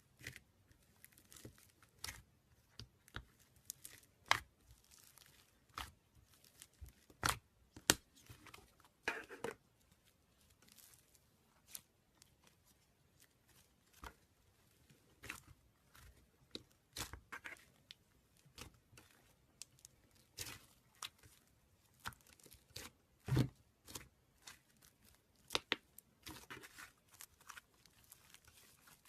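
Slime being squeezed and stretched by hand, giving irregular sticky crackles and pops, a few of them louder.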